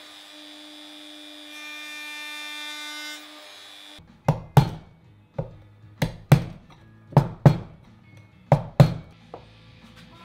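DeWalt compact router running with a steady whine that cuts off about three seconds in. Then about ten sharp knocks, mostly in quick pairs, as a chisel is struck to pare the inside edge of a half-lap joint in ash. Soft background music underneath.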